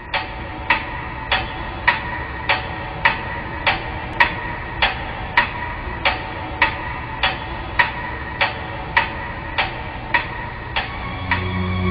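Pendulum clock ticking steadily, a little under two ticks a second, each tick with a bright metallic ring. Keyboard music comes in near the end.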